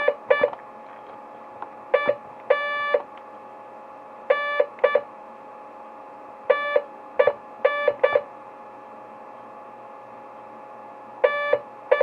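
Morse code beeps from a Digi-Tech toy base-station walkie-talkie, keyed by hand: short and long beeps at one steady pitch spell N-A-N-C-Y, with pauses between the letters. A faint steady hiss comes from the set between the beeps.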